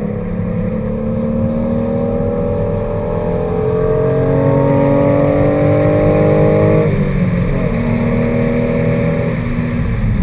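Car engine heard from inside the cabin under hard acceleration, its pitch climbing steadily, then dropping sharply at an upshift about seven seconds in before climbing again, over steady road and wind noise.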